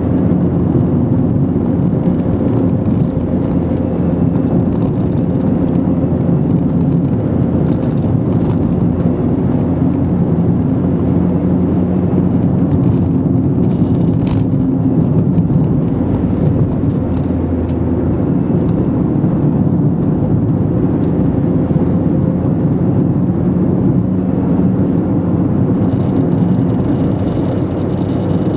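A car driving at a steady pace, heard from inside the cabin: a steady engine hum over road noise.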